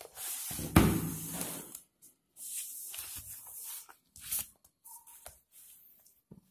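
Paper rustling and handling noise as sheets are moved about: two longer rustling stretches, the first with a sharp knock about a second in, then a few light taps near the end.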